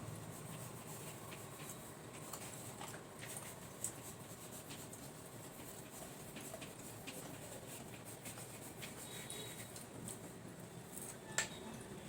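Faint small clicks and scrapes of people eating by hand from plates, with two sharper clicks, one about four seconds in and a louder one near the end.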